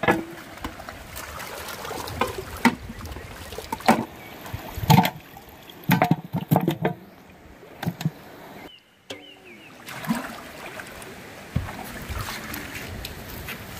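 Water splashing and sloshing as beef trotters are washed by hand in a large metal pot of water, with irregular knocks of the trotters against the pot. A shallow river runs steadily behind.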